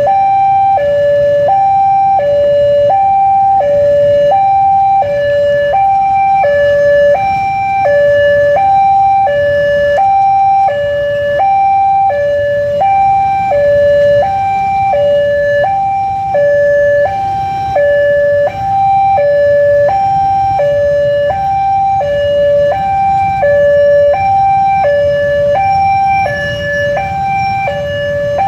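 Railway level-crossing warning alarm sounding continuously: an electronic two-tone signal that alternates steadily between a higher and a lower tone, each held about half a second, while the crossing lights flash for an approaching train.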